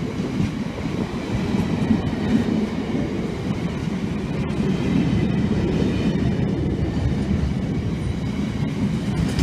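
Freight train hauled by Class 66 diesel locomotive 66003 rolling past: a steady low rumble with a few sharp clicks from the wheels.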